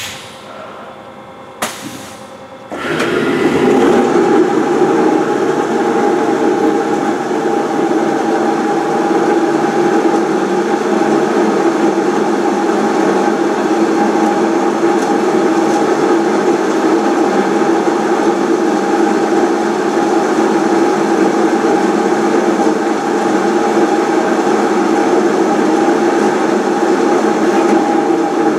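Haas SL30 big-bore CNC lathe starting its program: a couple of clicks at the controls, then about three seconds in the spindle spins up and the chuck runs at a steady speed with an even mechanical hum and whine.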